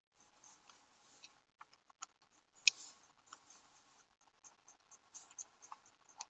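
Faint scratching of a pen writing on paper, with scattered light taps and clicks, coming through a video call's audio.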